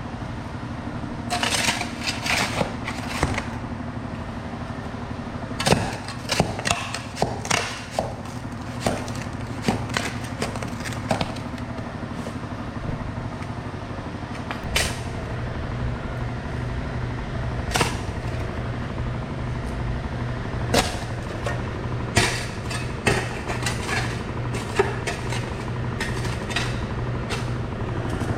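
Shovel digging out dirt in a trench: irregular scrapes and sharp strikes of the blade in soil and gravel. A steady low hum comes in about halfway through.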